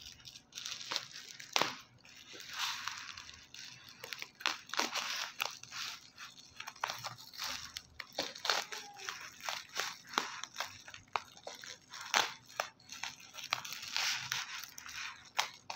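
Scissors cutting through a parcel's plastic wrap, brown paper and tape, the plastic crinkling and crackling as it is cut and handled, in a run of irregular sharp snips and crackles.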